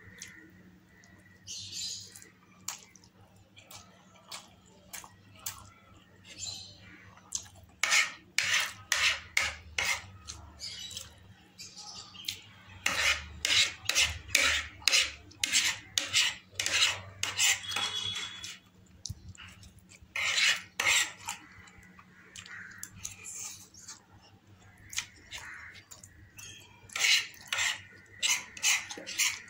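Metal cutlery scraping and clinking against a plate in irregular clusters of sharp clicks, scooping up the last of a plate of masala noodles.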